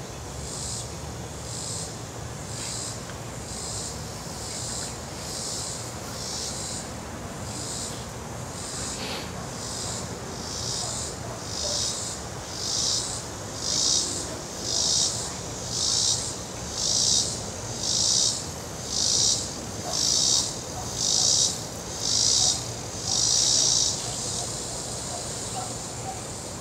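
Cicada calling: a high pulsing buzz, about one pulse a second, faint at first, then swelling much louder and stopping shortly before the end.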